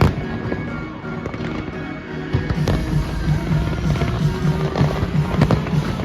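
Fireworks going off in sharp bangs, the loudest at the very start and a scatter more through the middle, over music that picks up a pulsing bass beat about two and a half seconds in.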